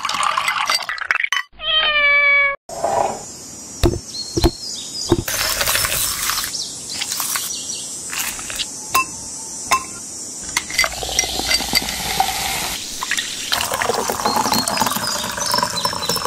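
Drinks being made in a glass: liquid pours over fruit, and a short cat meow falls in pitch about two seconds in. Then a steel muddler knocks and crushes watermelon in the glass with sharp clinks, and liquid pours with a steady hiss over ice near the end.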